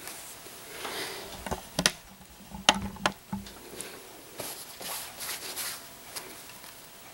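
Hands handling a whole apple: rustling and rubbing with several sharp clicks, the loudest about two and a half seconds in.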